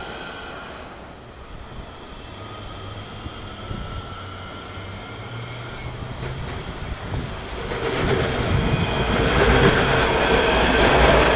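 Nottingham Express Transit Bombardier Incentro tram, number 212, running along street track with a low motor hum and wheel-on-rail noise. It grows much louder from about two-thirds of the way in as it comes close and passes.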